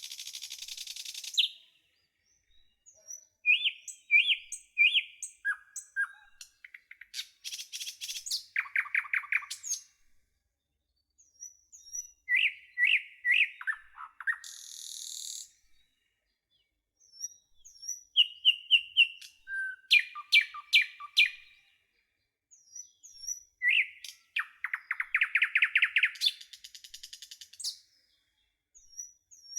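Birds chirping and trilling in quick repeated phrases, broken by short silent gaps. A short hiss sounds at the start and another about halfway.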